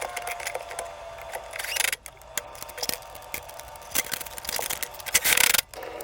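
Light metallic clinks and rattles as the expansion tank and its mounting straps are handled and set into the wall bracket, with a brief louder scraping rustle near the end.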